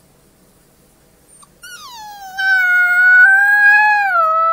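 A white pup howling: one long, loud howl that starts about a second and a half in, slides down in pitch at first, then is held fairly steady with a slight dip near the end.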